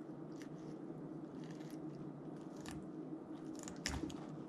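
Folding pocket knife cutting through the tissue of a raw fish being gutted on a plastic cutting board: a few faint short clicks over a low steady background hum.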